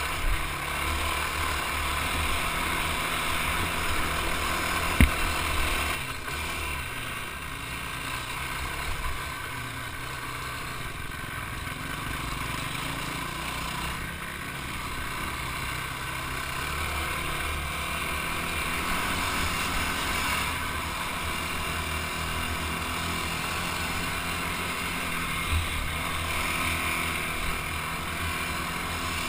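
Dirt bike engine running steadily while riding a dirt trail, heard close up from the bike itself, with one sharp knock about five seconds in.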